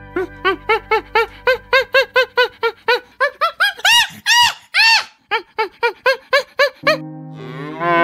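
Chimpanzee calling: a rapid series of short hoots that climb in pitch and loudness to arching screams about four to five seconds in, then shorter calls, typical of a pant-hoot. About seven seconds in, a cow starts a single long moo.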